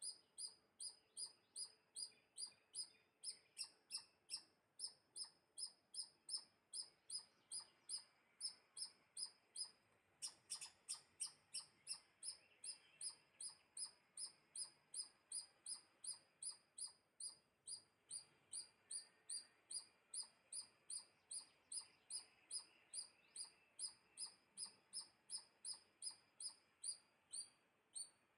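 A small bird chirping over and over in an even rhythm, about two short, high chirps a second.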